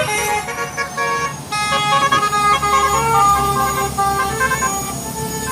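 Isuzu Elf minibus's telolet (basuri) multi-tone musical horn playing a tune: a string of steady horn notes stepping up and down in pitch, over the low hum of the vehicle's engine.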